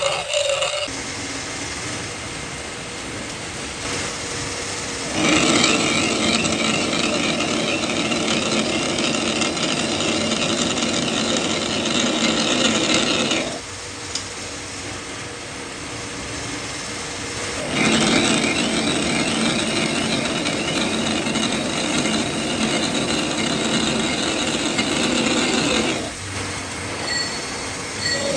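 Metal lathe running while a screw rod is threaded, with a steady mechanical rattle that grows louder for two stretches of about eight seconds each.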